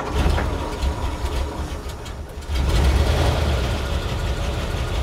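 The 100 horsepower Ford flathead V8 of a 1942 Ford fire truck being started warm without choke on its start button: the starter cranks, and the engine catches about two and a half seconds in and settles into a steady idle.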